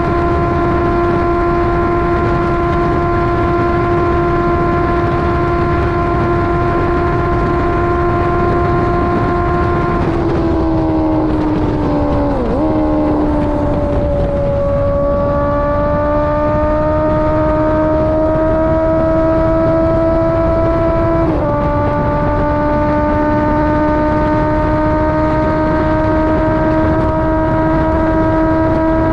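Honda CBR650R inline-four engine through a KO Lightning aftermarket exhaust under way, with wind and road noise. The engine holds a steady pitch for about ten seconds, then dips and wobbles as the bike slows. It then climbs slowly under acceleration, drops sharply at a gear change about two-thirds of the way through, and climbs again.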